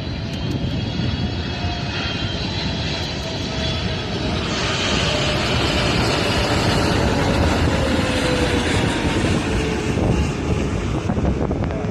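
Jet airliner's engines roaring as the aircraft passes close by, building to a peak about halfway through. The engine whine slowly falls in pitch as it goes past.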